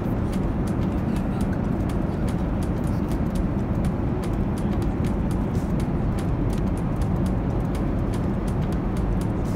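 Airliner cabin noise in flight: a steady low roar of engines and airflow, with scattered small clicks and clinks of cutlery and plastic meal trays.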